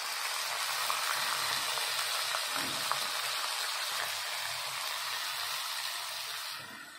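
Wet ginger-garlic paste and soaked spices sizzling in hot mustard oil with browned onions in an iron kadhai: a steady frying hiss that dies down near the end.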